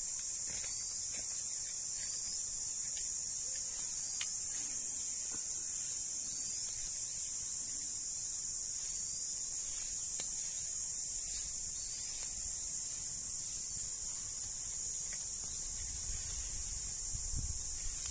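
Steady high-pitched insect chorus droning without a break, with a few faint crackles from dry leaf litter burning.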